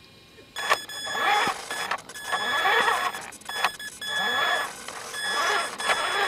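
Tonka Summit RC truck driving over grass: its motor and drivetrain whine with a steady high tone, surging up and down with the throttle, with a few sharp knocks. Quiet for the first half second, then a knock as it sets off.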